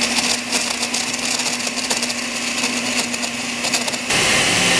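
Countertop blender motor running, chopping strawberries in milk with a steady hum and irregular crackling. About four seconds in it gets louder and smoother as the fruit breaks down.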